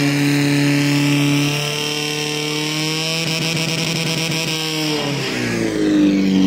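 Portable fire-pump engine running flat out, a steady high drone driving the charged hose lines. Its pitch shifts up slightly about a second and a half in, then sags and climbs back near the end.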